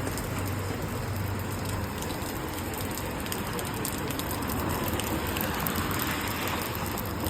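Wet city street in the rain: steady rain hiss with traffic, a low engine hum early on, then a vehicle's tyres hissing past on the wet road from about four and a half seconds in.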